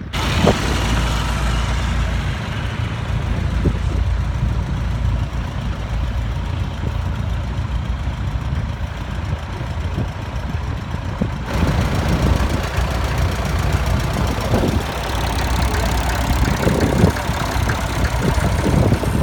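Tractor engines running steadily with a deep, continuous hum. The sound changes abruptly about eleven seconds in, where more hiss comes in.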